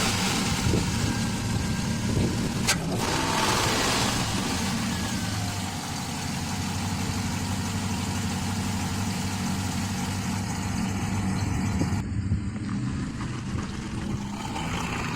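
2011 Chevrolet Silverado pickup's engine running steadily through an exhaust with the mid muffler deleted, giving a deep, even exhaust note. About twelve seconds in, the hiss above it suddenly drops away.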